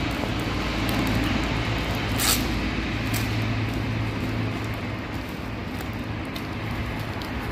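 Steady background hiss with a low hum, over which a paper wrapper crinkles now and then as it is unwrapped by hand, most sharply about two seconds in.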